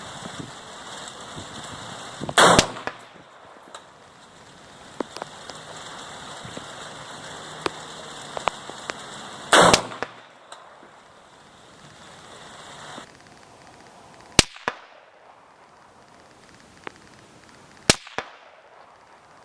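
Four rifle shots several seconds apart: two with a longer ringing tail a few seconds in and near the middle, two sharper cracks in the last third. Rain patters steadily until about two-thirds of the way through.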